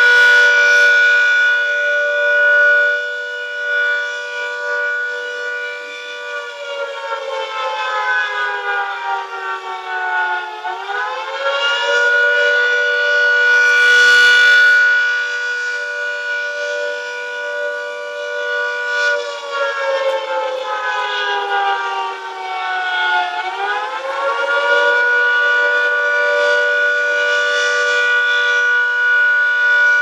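Castle Castings dual-tone electric air raid siren sounding a wail: a two-note chord held at full pitch, sagging lower and climbing back up about every twelve seconds. A short burst of rumbling noise comes about halfway through.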